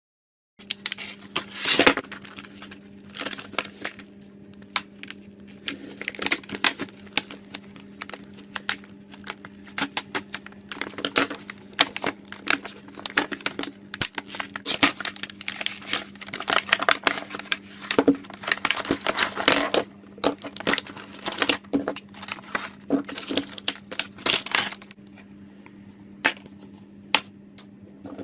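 Slime being worked by hand, making dense runs of sticky clicks and crackles that thin out to a few near the end, over a steady low hum.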